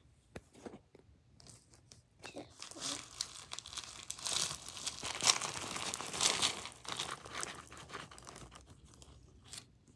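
Zip-top plastic bag crinkling while small hard candies are tipped out of a plastic Easter egg into it. A few light clicks come first, then the crinkling builds, is loudest in the middle and dies away near the end.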